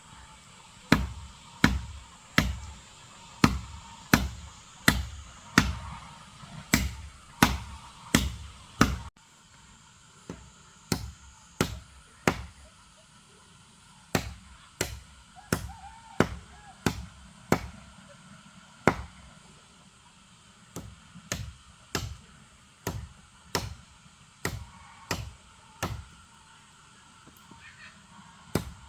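A blade chopping into wood by hand: a steady run of sharp strokes at about one and a half a second, then after a break further strokes in shorter runs with brief pauses.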